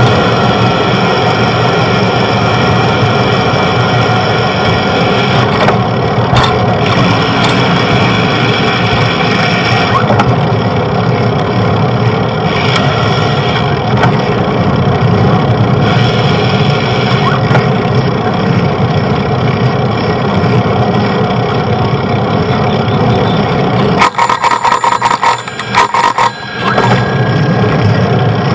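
Steady noise of street traffic heard from a moving bicycle. About three seconds before the end, a bicycle bell is rung rapidly, a quick run of sharp rings lasting two to three seconds.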